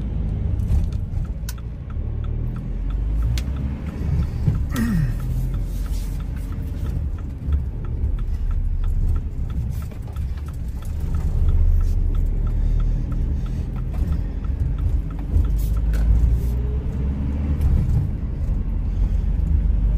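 A van on the move, heard from inside the cab: steady low engine and road rumble, with a faint regular ticking through much of it.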